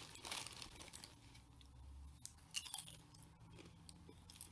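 Faint, scattered clicks and crackles close to the microphone, like small handling noises, with no speech.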